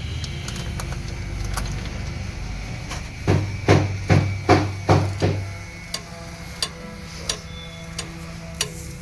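A run of about six hammer blows, a little over two a second, a few seconds in, followed by several sharper single taps, over a steady low hum.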